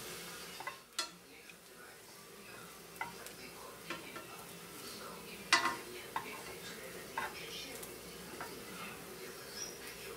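Bread strips frying in melted butter in a nonstick pan over low heat, a steady sizzle, with wooden chopsticks tapping and scraping against the pan several times as the strips are turned; the sharpest tap comes about five and a half seconds in.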